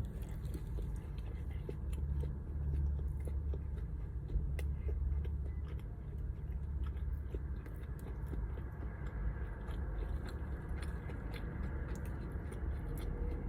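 Close-up chewing and biting of food, with small scattered mouth clicks, over a steady low rumble inside a car.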